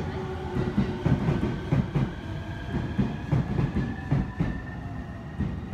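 Electric passenger train moving along the platform, its wheels clacking over the rail joints in a steady run of knocks, with a thin whine rising slowly in pitch.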